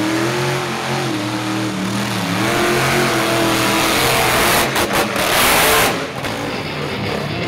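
Monster truck engine revving hard, its pitch rising and falling over the first few seconds. About five seconds in comes a loud rushing noise, the loudest part, which cuts off suddenly a second or so later.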